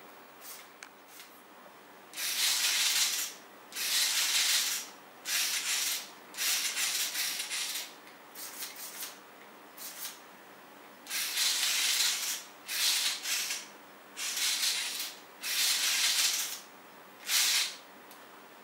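Lego NXT motors and their gear trains driving the robotic hand's fingers, whirring in a series of short bursts about a second long, one burst for each finger movement.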